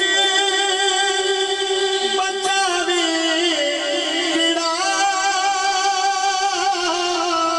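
A man singing a naat into a microphone over a sound system, unaccompanied, holding long wavering notes with slow melodic turns.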